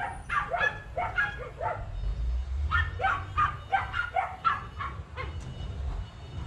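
A dog barking repeatedly in quick runs of short barks, stopping about a second before the end.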